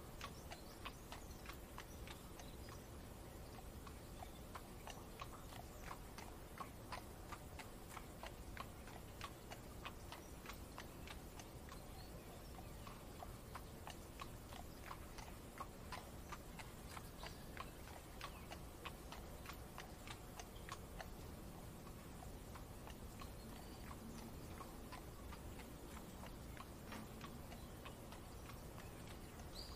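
Faint steady rain with the even clip-clop of horse hooves, a regular run of short clicks a few times a second, as of a horse-drawn carriage at a walk.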